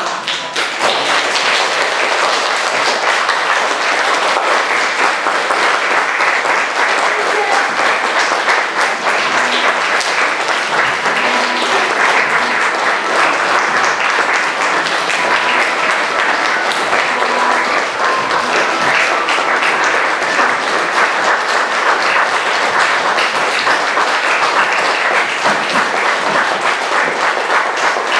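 Theatre audience applauding: dense, steady clapping of many hands that begins about half a second in and holds at an even level throughout.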